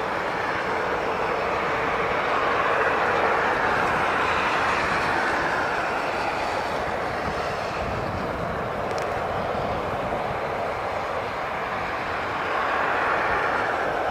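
Jet airliner engines running, a steady rush of noise that swells about three seconds in and again near the end.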